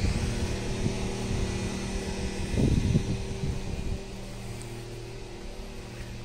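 A steady low mechanical hum, like a motor or engine running, with low rumbling bumps from the phone being carried on foot, the clearest about three seconds in.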